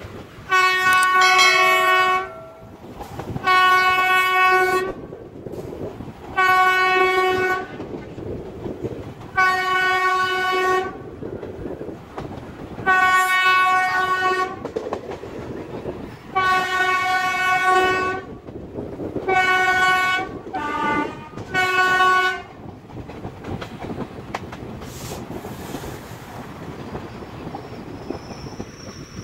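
A train horn sounding close up in about nine blasts of one to two seconds each, a second or two apart, the last three shorter and bunched together, over the steady rumble and clatter of the moving train's wheels on the rails. The horn stops about three-quarters of the way through, leaving the running noise.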